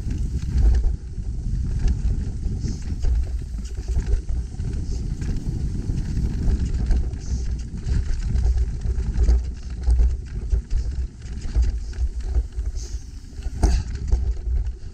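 Heavy wind buffeting on the microphone, with the clatter and rattle of a mountain bike being ridden over rough trail: many short knocks over a steady low rumble.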